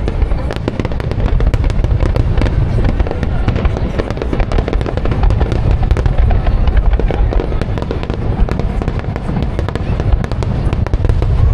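Aerial fireworks bursting in quick succession at a fireworks display: many overlapping crackles over continuous low booms.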